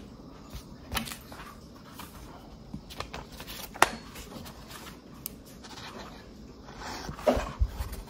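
Paperback book being handled on a table: pages turned with soft paper rustle and scattered small clicks and taps, a sharp click about four seconds in and a few soft knocks near the end.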